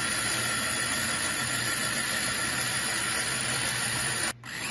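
Electric mini food chopper's motor running steadily with a whine, its blade chopping a wet mint chutney mixture. It cuts out for a moment near the end, then runs on.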